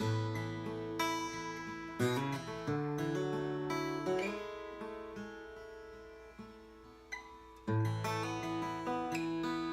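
Gopher Wood 820 steel-string acoustic guitar, freshly strung with BlackSmith AAOT carbon-coated strings, being strummed in chords about once a second. About four seconds in, a chord is left to ring and fade for several seconds before the strumming picks up again.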